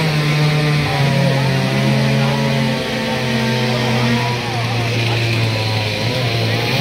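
Background music with long held low notes that shift pitch in steps.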